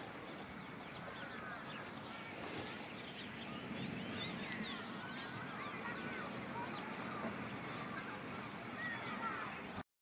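A flock of small birds chattering and twittering, many quick overlapping chirps and whistles at once, cutting off suddenly near the end.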